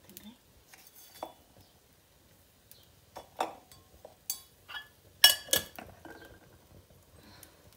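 Metal kitchen utensils clinking and knocking a few times, with the loudest pair of clinks about five seconds in followed by a short ring.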